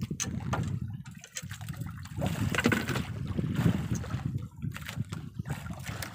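Sea water lapping and splashing against the hull of a small outrigger fishing boat, with a steady low rumble of wind on the microphone.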